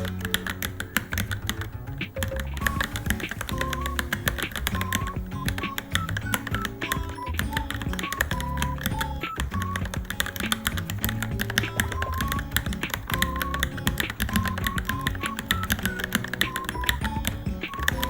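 Rapid, continuous typing on a Varmilo Minilo mechanical keyboard, a quick irregular stream of key clicks, over background music with a melody and bass.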